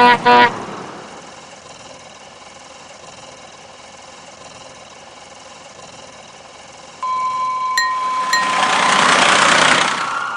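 Electronic sound effects from a battery-powered toy fire truck: two short horn beeps at the start, a quiet stretch, then a steady tone with two clicks about seven seconds in, followed by a rising and falling hiss.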